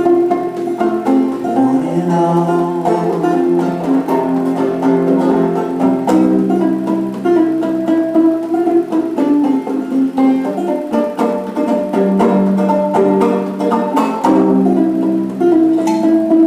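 Solo banjo playing a plucked melody over long held low notes; one low note slides up about a second and a half in.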